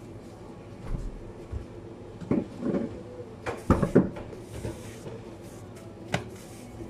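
Plastic takeaway containers being handled on a counter: a series of knocks and clatters, loudest about halfway through, with some brief rustling, over a steady low hum.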